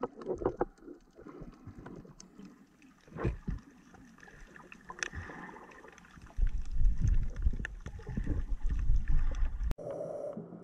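Underwater camera sound of water moving and bubbling, with scattered clicks, and a heavier low rumble from about six seconds in. It cuts off suddenly near the end, giving way to a softer murmur.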